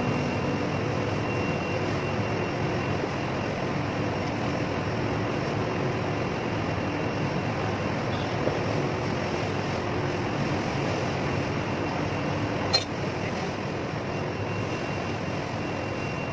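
Steady mechanical background noise, like machinery or ventilation running, with a single sharp click about thirteen seconds in.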